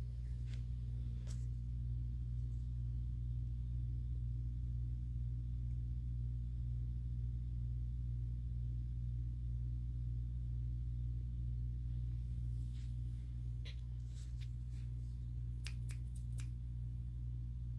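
Steady low background hum, with a few faint sharp clicks and ticks, several of them in a quick cluster near the end.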